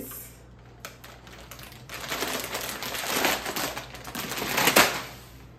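Plastic snack bag crinkling and rustling as hands work at tearing it open: a few small crackles at first, then a long stretch of continuous crinkling that is loudest a little before the end.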